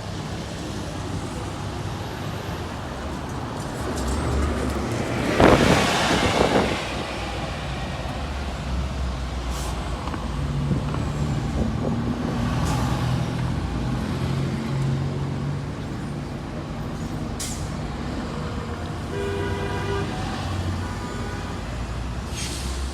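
2006 Orion V diesel transit bus running, with a loud burst of air-brake hiss about five seconds in. The engine note steadies through the middle, and a short pitched tone sounds near the end.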